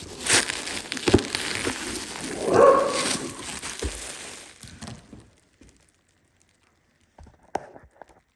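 Cigar packaging being handled and unwrapped: rustling and crinkling for about five seconds, loudest midway. Then a short lull and a few small clicks near the end.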